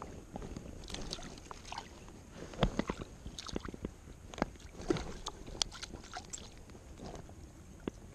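Scattered small splashes, knocks and rustles of a hand holding a caught trout in shallow river water, with a cluster of sharper knocks a few seconds in.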